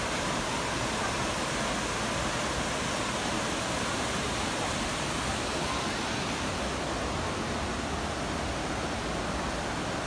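Steady, even rush of water at the Düden Waterfalls: river water falling and running fast over rock.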